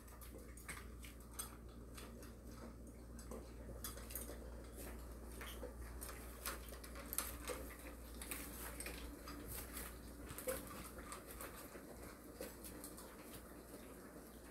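Dogs and a kitten eating dry kibble: faint, irregular crunches of chewing, with light clicks of food against their bowls.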